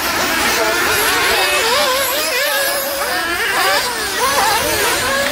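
Several nitro RC off-road cars' small two-stroke glow-fuel engines running at once, each high pitch rising and falling as the cars rev and back off, the pitches overlapping into a steady mass.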